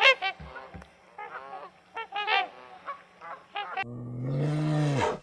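Honking bird calls, a quick run of short honks, then about four seconds in a single long, low animal call that holds steady and cuts off suddenly just before the end.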